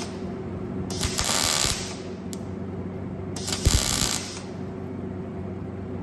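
MIG welder laying short stitch welds on a cracked bracket: two short spells of welding arc, about a second in and again at about three and a half seconds, each lasting under a second, with a steady low hum between them.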